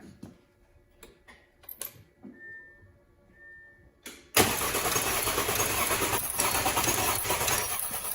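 A few clicks and two short electronic beeps, then about four seconds in the 2012 Audi A6 3.0T's starter suddenly begins cranking the engine, which keeps turning over without catching: the crank-no-start fault.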